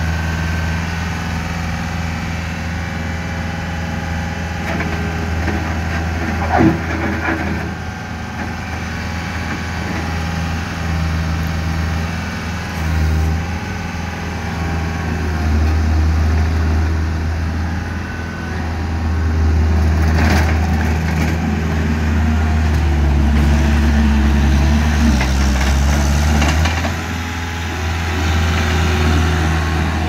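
John Deere 323D compact track loader's diesel engine running as the machine drives and turns, steady throughout and louder for about ten seconds in the middle. A single short knock about six seconds in.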